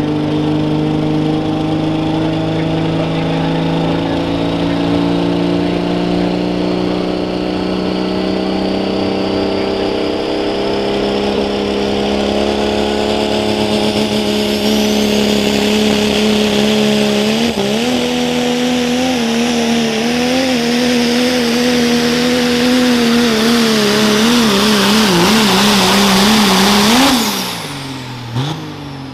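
Pro stock diesel pulling truck at full throttle through a pull, the engine held high and loud for over twenty seconds while a high whine rises over it. In the second half the engine note wavers up and down as the truck is pulled down by the sled. Near the end the throttle is cut and the note falls away quickly.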